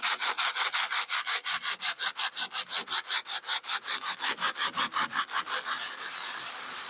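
A loose cornice ornament rubbed by hand on coarse sandpaper laid flat, in quick back-and-forth strokes about six a second that merge into a steady rasp near the end: sanding old glue off the back of the piece.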